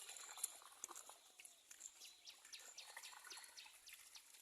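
Faint bird calls: scattered chirps, then a quick series of short high notes, each falling in pitch, about four a second through the second half.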